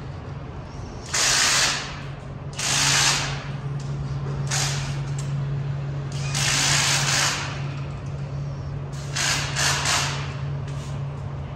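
About five short bursts from a power tool, each lasting about half a second to a second, over a steady low hum.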